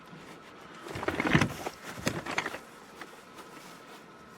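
The folded Mountain Buggy Nano travel pram is handled and moved. A burst of rustling and scraping with a few knocks starts about a second in and lasts about a second and a half, then fades to light scuffs.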